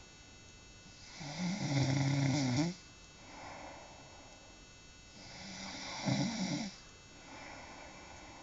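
A woman snoring: two long, loud snores about four seconds apart, each with a low rattling buzz, separated by quieter breathing-level stretches.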